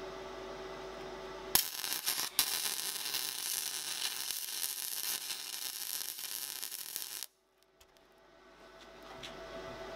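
Electric arc welding on a steel bolt: after a steady hum, the arc strikes about one and a half seconds in and crackles and sizzles for about six seconds, then cuts off suddenly.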